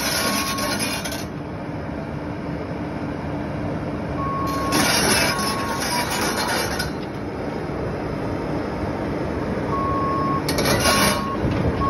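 Cat mini excavator running, its engine drone steady, with hissy surges of hydraulic noise three times. Its travel alarm beeps in short high tones in a few bursts as the machine moves.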